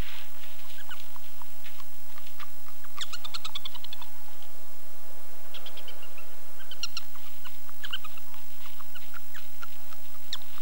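Prairie dogs chirping: short, high calls given in quick series, in several bouts.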